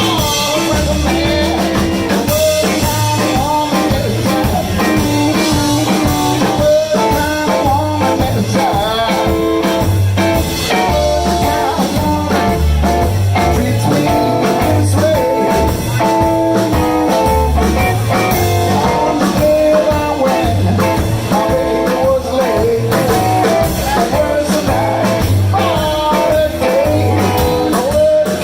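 Blues band playing live: a guitar line with singing over a walking bass and a steady drum beat.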